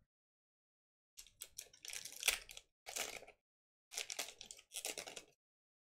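Foil wrapper of a Pokémon trading card booster pack being torn open and crinkled by hand, in four short bursts of crackling from about a second in.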